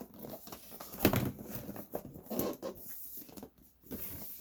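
Cardboard shipping box being handled and opened: irregular scraping and rustling of cardboard with knocks, the sharpest about a second in.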